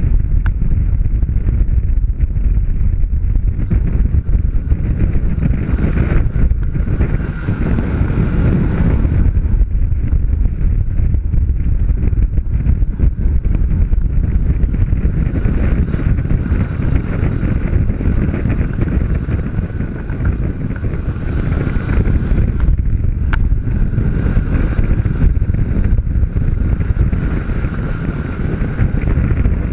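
Honda CB500 parallel-twin engine running at speed, heavily buffeted by wind noise on the microphone.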